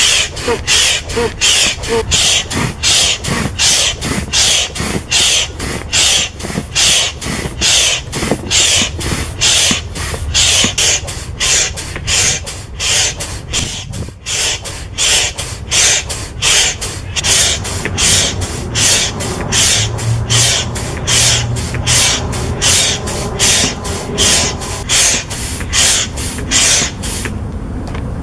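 Double-action manual hand pump inflating a float tube's air bladder: a rhythmic rush of air with every stroke, about two strokes a second, until the pumping stops shortly before the end.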